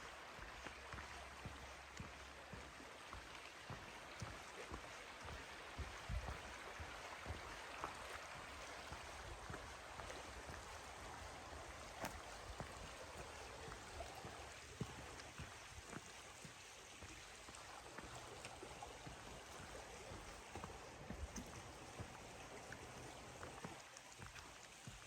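Faint, steady rush of running water, with scattered light clicks and knocks from footsteps on the trail.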